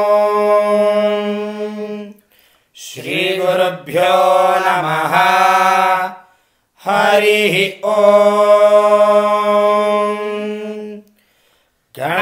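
A single unaccompanied voice chanting a Sanskrit Ganesha mantra, mostly in long held notes on a steady pitch. It breaks off twice, for short silences about 6 s in and near the end.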